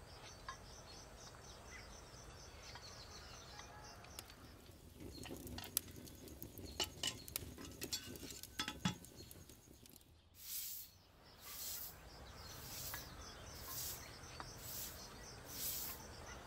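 Faint insects chirping, then a metal ladle clinking and scraping in a cooking pot over a fire. After that come short hissing pulses about once a second.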